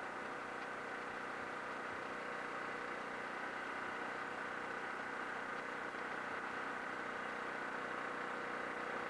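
Steady mechanical hum that holds the same pitch and level throughout.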